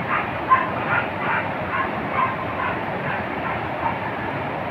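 Hunting dogs barking, a string of short barks about two a second, over a steady rushing noise.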